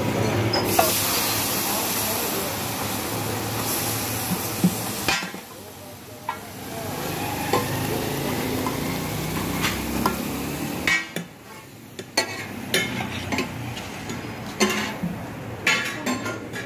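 Food sizzling on a large flat steel takatak griddle, a steady hiss that is loudest for the first five seconds and then dies down. In the second half come scattered sharp metal clinks and clatters of utensils and dishes.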